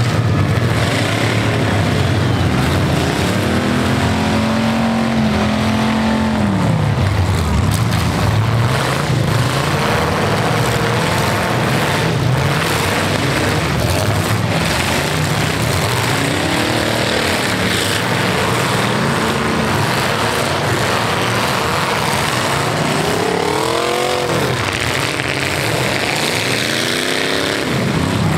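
Several demolition derby cars' V8 engines running and revving together, loud and continuous, with engine pitch climbing and falling again and again.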